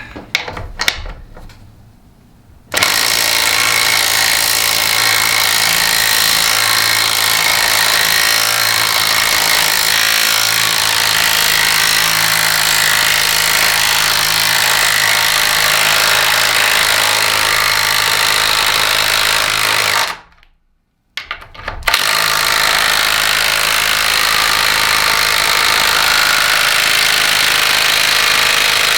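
Cordless brushless 1/4-inch impact driver hammering continuously as it drives a fastener under heavy load. It runs for about seventeen seconds, stops for a second or two, then hammers on for about another seven seconds.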